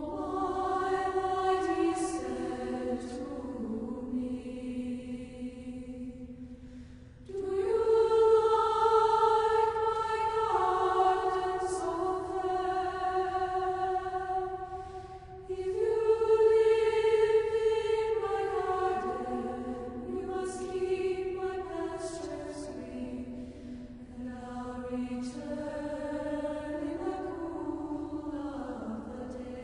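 Slow choral music: voices singing long held chords, with new phrases swelling in about seven and fifteen seconds in.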